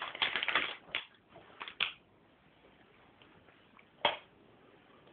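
Handling noise from the recording camera as it is moved: a second of rustling clatter, a few light clicks, then one sharp knock about four seconds in.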